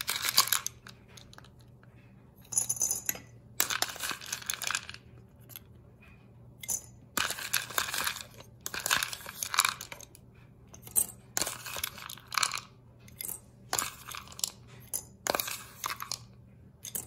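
Chocolate chips rattling in a plastic bowl as a plastic measuring spoon scoops them, and clinking into ceramic mugs as they are tipped in. The sound comes in about ten short bursts with gaps between.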